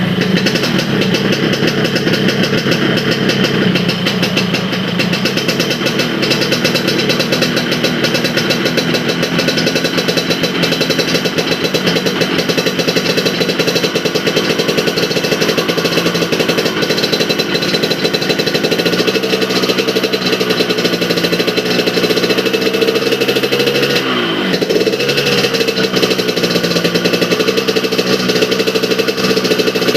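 Yamaha RX-King's two-stroke single-cylinder engine running steadily through a split, one-chamber aftermarket muffler, a dry, crackly growl of rapid firing pulses. About four-fifths of the way through, the engine speed dips briefly and picks back up.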